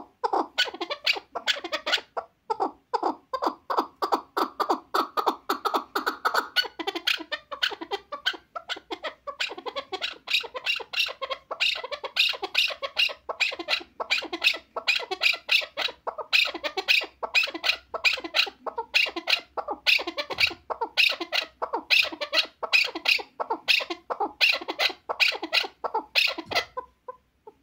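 Chukar partridge calling: a long, unbroken run of rapid chuck notes, about four a second, that breaks off near the end.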